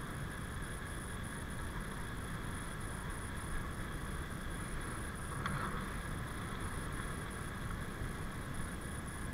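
Steady low rumble of wind on the camera microphone and bicycle tyres rolling on a tarmac path while riding, with a brief bump about five and a half seconds in.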